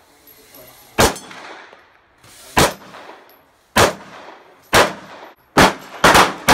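A series of about seven shots from a 9mm semi-automatic pistol. Each crack is followed by a short echo. The shots come more than a second apart at first and quicken near the end.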